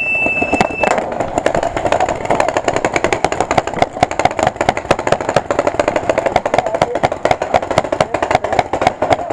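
Rapid paintball fire: a dense, unbroken stream of sharp pops, many a second, over a steady buzz. A brief high tone sounds at the very start.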